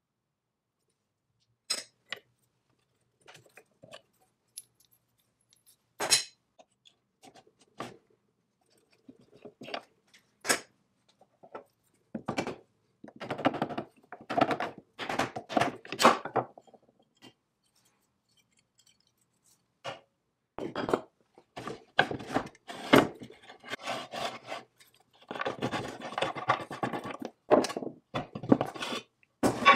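Cast-iron and steel parts of a Foley Automatic Filer Model 61 saw sharpener being handled and fitted: scattered metal clicks and knocks, then, from about the middle on, longer stretches of metal sliding and scraping against metal.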